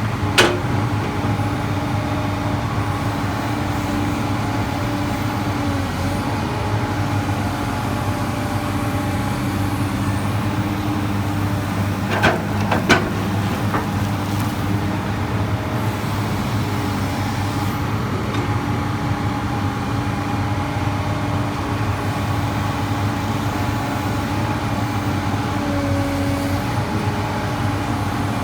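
Komatsu PC200 excavator's diesel engine running steadily while digging, with a sharp knock just after the start and two more close together about halfway through.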